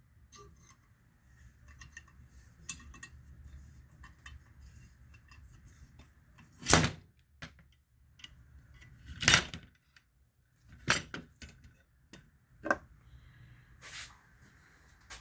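Metal tool and valve parts clinking as a homemade valve spring compressor is worked loose from a motorcycle cylinder head, with light rattling at first, then five sharp metallic clanks spaced a second or two apart as pieces are handled and set down.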